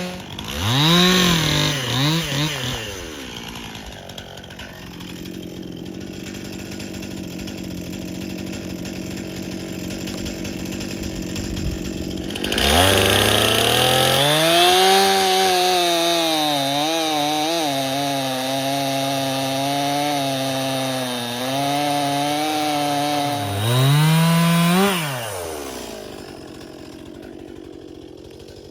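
Stihl MS261 C chainsaw bucking the end off a cherry log. It cuts at high revs, drops to a lower speed for several seconds, then cuts again for about ten seconds with the pitch wavering under load. Near the end it revs briefly and falls back to idle.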